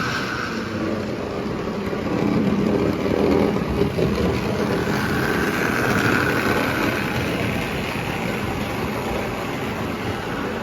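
Postwar Lionel 41 toy train unit running on O gauge track pulling cars: a steady motor whine and wheel rumble on the rails. The whine swells near the start and again about halfway through, as the train comes round.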